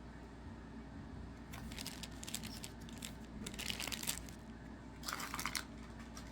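Foil trading-card pack wrappers crinkling and tearing as packs are opened, in three short rustling bursts.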